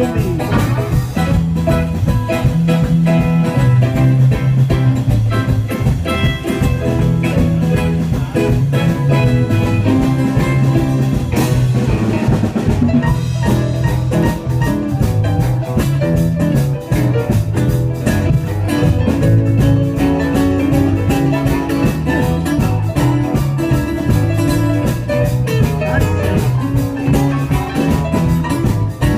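Live band playing an instrumental passage with electric guitar, bass and drums, without vocals.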